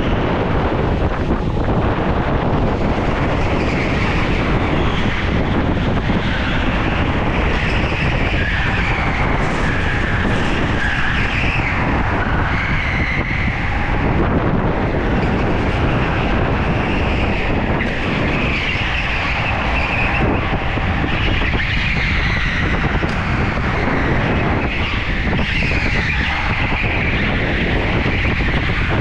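Go-kart at speed on a polished concrete indoor track, heard from an onboard camera: steady loud motor and wind noise, with tyres squealing on and off as the kart takes the corners.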